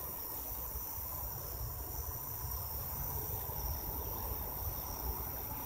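Steady chorus of night-singing insects, a constant high-pitched trilling, over a low rumble.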